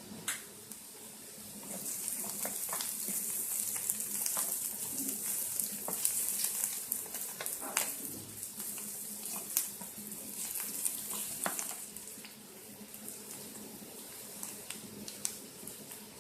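Sliced onions frying in oil in a pan, a steady high sizzle that grows louder about two seconds in and eases off near twelve seconds, with scattered sharp clicks.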